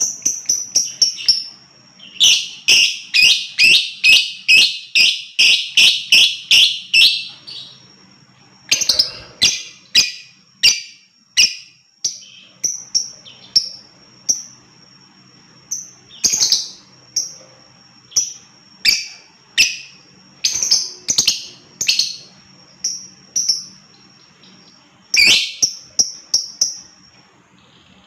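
Lovebird chattering in shrill chirps: a fast run of about three a second for several seconds, then single chirps roughly one a second with a quick burst near the end. This is the ngekek-style chatter used to train other lovebirds.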